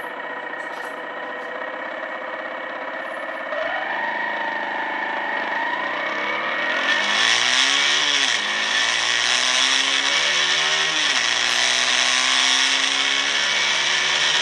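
Motorcycle engine running steadily, then accelerating hard through the gears, its pitch climbing and dropping back at each change about every three seconds. Wind rushes over the microphone as speed builds.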